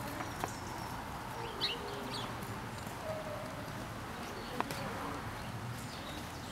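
A horse moving on a sand arena, its hoofbeats soft and faint, with a few short bird chirps and occasional light knocks over a steady outdoor background.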